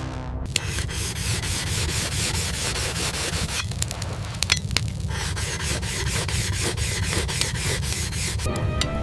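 Rough, rhythmic scraping or rubbing strokes, about four a second, like something being sanded or rasped.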